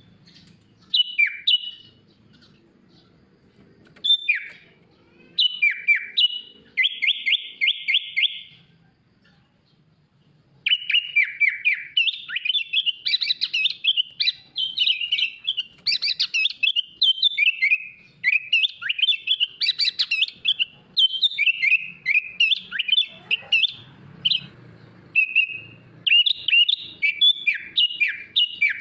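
Sooty-headed bulbul (kutilang) singing: clear chirps and falling whistles, a fast even trill about seven seconds in, then after a short pause a dense run of rapid, varied song phrases.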